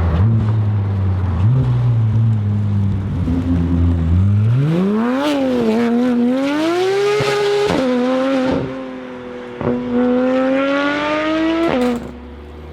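A car engine sound running low and steady, then revving: the pitch climbs about four seconds in and holds high, drops briefly near the eight-second mark, then rises slowly again and cuts off sharply near the end.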